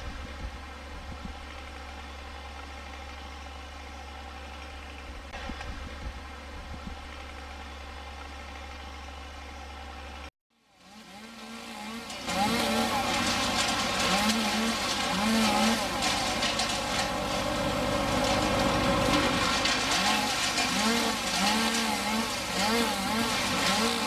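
An engine running steadily for about ten seconds, then a sudden cut to silence, followed by a louder engine whose pitch rises and dips again and again, as with a throttle being worked.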